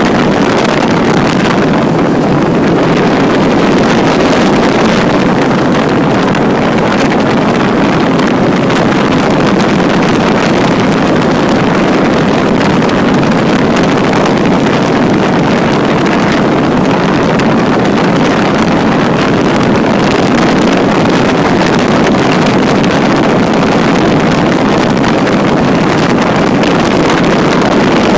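Microlight trike in flight: a steady, loud engine drone mixed with rushing wind over the microphone.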